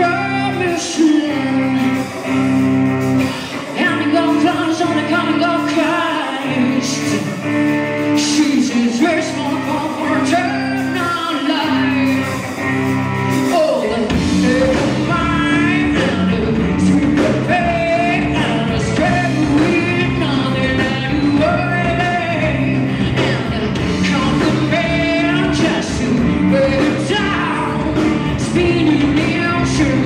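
Live rock band: a woman singing over electric guitar, bass guitar and drums. About halfway through, the band comes in fuller and the deep bass becomes continuous.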